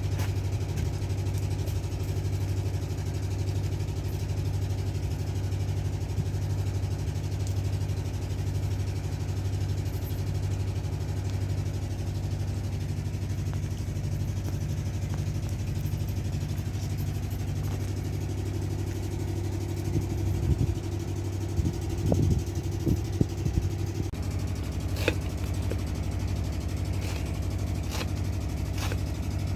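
An engine running steadily with an even low hum, with a cluster of irregular knocks about two-thirds of the way in and a few sharp clicks near the end.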